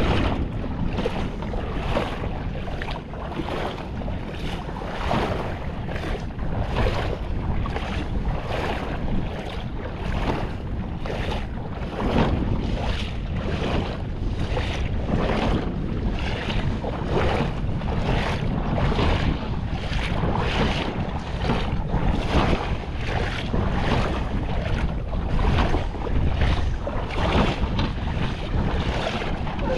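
Wind buffeting the microphone, with a steady rhythm of wading footsteps splashing through shallow tidal water, about four steps every three seconds.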